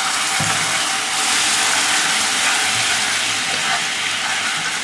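Hot caramelized sugar sauce in a wok sizzling and hissing steadily just after a spoonful of white vinegar goes in, easing a little near the end.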